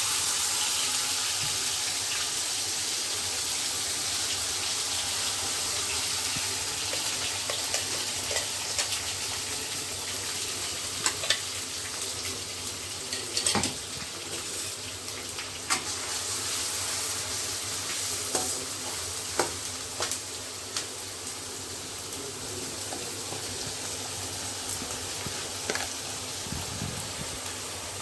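Wet onion, garlic and green chilli paste sizzling in hot mustard oil in a pan, being stirred, with a spoon scraping and tapping against the pan now and then. The sizzle is strongest at the start, just after the paste goes in, and settles a little.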